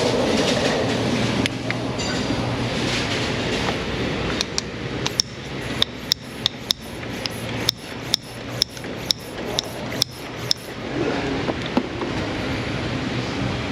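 Hand pump of a cooling-system pressure tester being worked on a Ford Thunderbird's cooling system: a run of sharp clicks, about three a second, from about four seconds in to near the end. The pressure builds only weakly, which the mechanic puts down to an adapter cap that isn't right.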